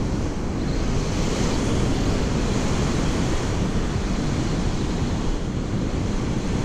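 Surf breaking and washing up the beach, with wind buffeting the microphone as a steady low rumble.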